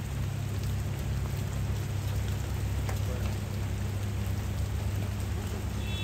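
Heavy rain pouring down on the street and cars, an even hiss with a steady low rumble underneath.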